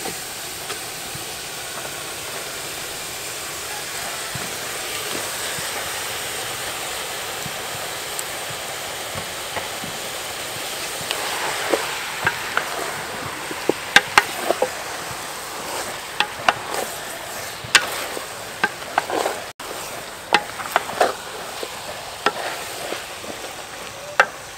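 Raw meat sizzling in a hot pot of frying lemongrass and spice paste, a steady hiss. From about halfway, a wooden spatula stirs the meat, scraping and knocking against the metal pot in quick, irregular clicks.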